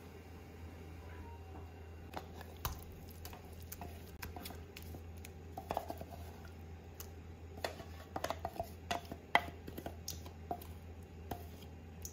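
Wooden spoon scraping thick spice paste and knocking against a steel bowl: a scatter of light knocks and clinks, thickest about eight to nine seconds in, over a low steady hum.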